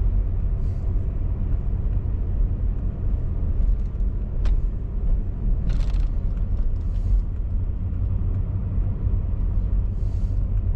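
Steady low rumble of a vehicle driving, with a few brief hisses over it.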